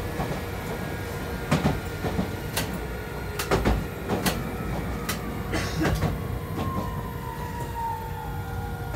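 Hiroshima Electric Railway 3900-series tram running, heard inside the car: a low rumble with a string of irregular knocks and clacks from the wheels over rail joints. In the second half the whine of the Toyo Denki hybrid-SiC VVVF inverter and traction motors falls slowly in pitch as the tram slows.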